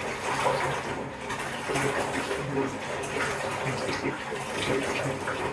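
Water running from a tap into a bathtub, a steady rush.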